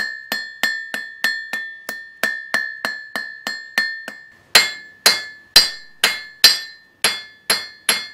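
A 3-pound hand hammer strikes hot iron on an anvil in a steady rhythm, and the anvil rings after every blow. This is the drawing out of the bar into a point. The blows come quickly, about three a second, then turn heavier and louder, about two a second, from about halfway through.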